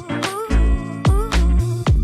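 Background music: an upbeat funk/R&B track with a steady beat and a gliding melody line.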